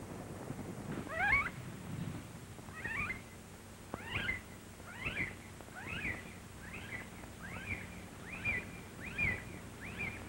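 An animal calling over and over: about ten short, high cries that come closer together as they go, over the steady hum and hiss of an old film soundtrack.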